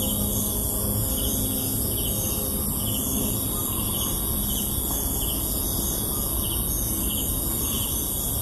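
Countryside ambience: insects buzzing steadily with a slow pulse, and short chirps repeating about once a second, over a steady low rumble. Faint background music tones fade out in the first second.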